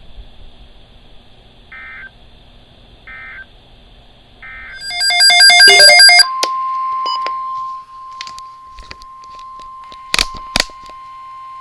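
NOAA Weather Radio EAS alert tones: three short SAME end-of-message data bursts about a second and a half apart, then a loud, harsh burst of data tones, then the steady single-pitch 1050 Hz warning alarm tone held about six seconds, with two sharp clicks near the end.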